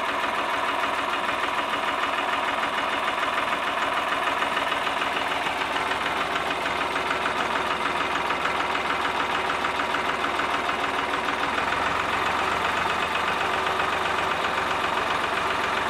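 Farmtrac tractor's diesel engine running steadily with a fast, even beat; the low hum grows a little stronger about twelve seconds in.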